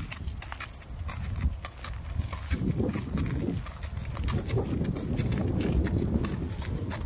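A horse walking on a gravel track, its hooves clopping and crunching on the stones step after step.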